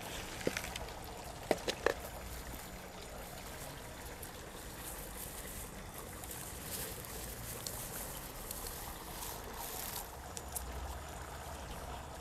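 Hand-planting a shrub: dry garden soil rustling and crumbling as hands push it in and firm it around the root ball, with a few light knocks in the first two seconds as the plant is worked out of its plastic nursery pot.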